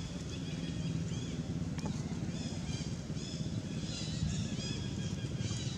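Steady low rumble, with small birds chirping in short repeated phrases over it, more thickly from about two seconds in.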